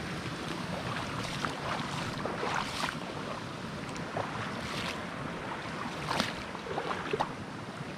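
Footsteps wading through shallow water and mud, a string of irregular splashes and sloshes over a steady background hiss.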